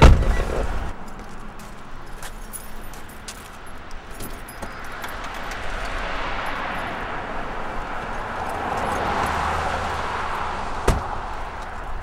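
A car door shuts with a heavy thump at the start, then keys jingle and a car trunk is opened. A rushing noise swells and fades over several seconds, and near the end the trunk lid slams shut.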